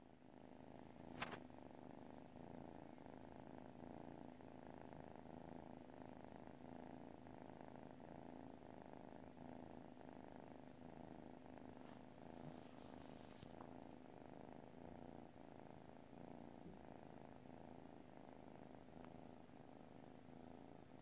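A sleeping kitten purring softly and steadily, with a brief click about a second in.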